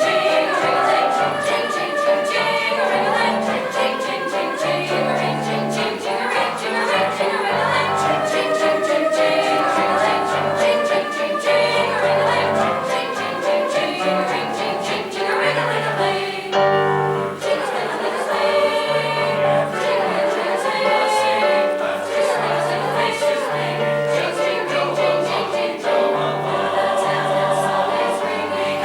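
High school chorus singing a Russian folk tune arrangement in parts, over a quick, steady rhythmic accompaniment.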